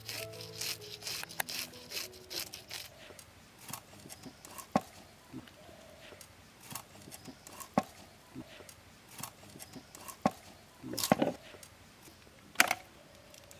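A fish being scaled and cut up with an upright bonti blade. Quick scraping strokes of the blade over the scales come first, then separate sharp cuts and knocks about once a second as the fish is chopped into pieces, the loudest two near the end.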